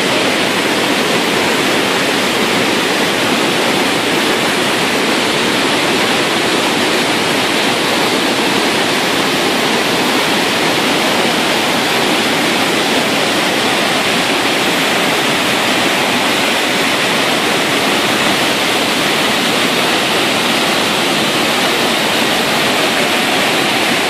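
Iguazu Falls' cascades pouring over the cliffs and crashing into the spray below: a loud, steady rush of falling water.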